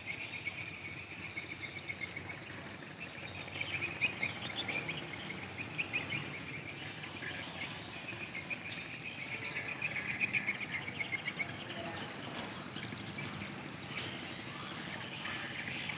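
Outdoor waterside ambience: a steady background noise with a dense run of high chirping calls from small creatures. The chirping is strongest in the middle and thins out near the end.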